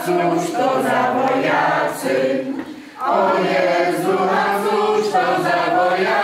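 A roomful of men and women singing a Polish song together from song sheets, in held notes with a short break for breath about halfway.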